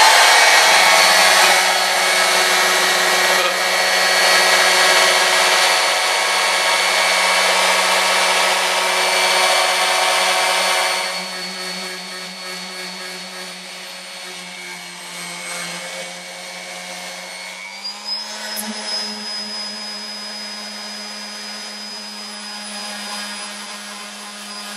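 Electric random orbital sander with an 80-grit disc sanding a teak deck, cutting back cured Sikaflex seam caulk: a steady motor whine with the rasp of the paper on the wood. Loud for the first ten seconds or so, then quieter, with the motor's pitch stepping up slightly about eighteen seconds in.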